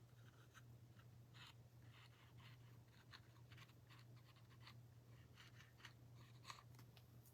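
Near silence with many faint, short scratches and taps of small wooden craft pieces and a glue bottle being handled on a tabletop, over a steady low hum.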